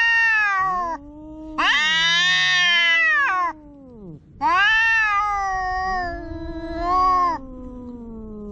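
A cat meowing loudly in long, drawn-out, wavering calls: one call ends about a second in, followed by two more of about two to three seconds each with short gaps between.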